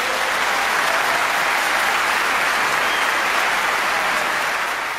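Audience applause in a concert hall after an orchestral piece: dense, steady clapping that starts to fade near the end.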